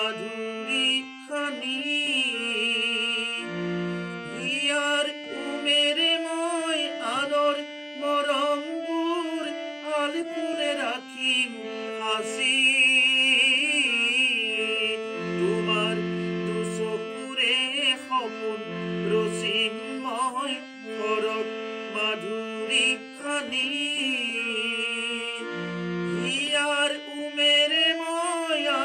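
A man singing an Assamese modern song (adhunik geet) in long drawn-out lines with vibrato, over the sustained chords of a harmonium, with a few deep bass notes here and there.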